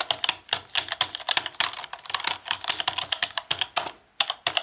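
Rapid typing on a computer keyboard: a brisk, uneven run of key clicks, several a second, with a short pause about four seconds in.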